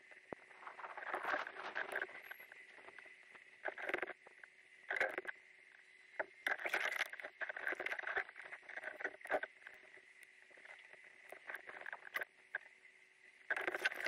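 Double-bladed kayak paddle strokes in shallow creek water: blades dipping, splashing and dripping in an uneven rhythm, with a splash about every second or two.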